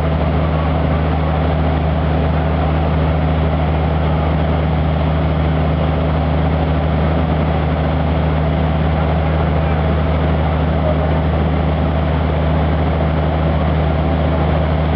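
Fire truck engine running at a steady speed, a constant low drone with an even hiss over it, as the aerial ladder's water stream is kept on the fire.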